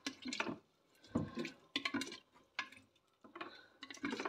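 Wooden spoon stirring lilac flowers and water in a large glass jar, knocking irregularly against the glass with some sloshing of the liquid.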